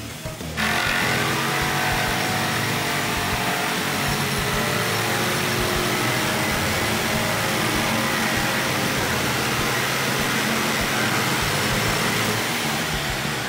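Corded electric jigsaw sawing through a wooden plank: a steady, loud motor-and-blade buzz that starts suddenly about half a second in.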